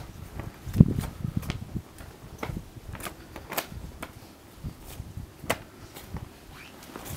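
Scattered soft knocks and rustles of handling at irregular intervals, with a louder low thump about a second in.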